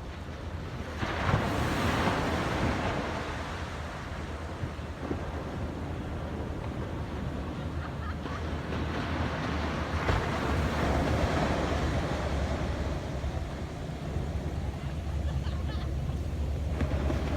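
Atlantic ocean surf breaking on the beach, a steady wash of waves that swells as a wave crashes about a second in and again around the middle. Wind buffets the microphone with a low rumble underneath.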